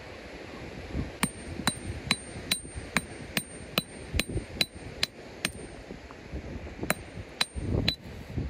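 Geological hammer striking a hand-held rock: a series of sharp metallic clinks with a brief ring, about two blows a second. The blows pause briefly after about five seconds, then three more follow.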